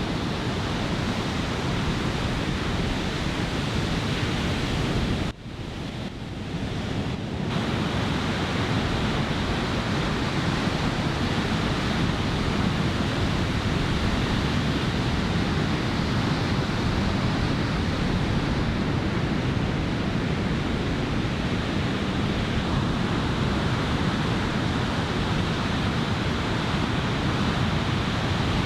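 Surf from a typhoon swell breaking on a sandy beach, with onshore wind buffeting the microphone: a steady, even wash of noise. It drops out abruptly about five seconds in and builds back over the next two seconds.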